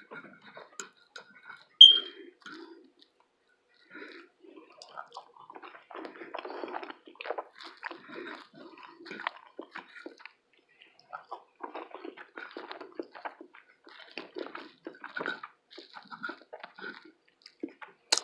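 A person chewing food close to the microphone: a dense run of small irregular clicks and crackles, with a short pause about three seconds in. One brief, sharp, high-pitched click about two seconds in stands out as the loudest sound.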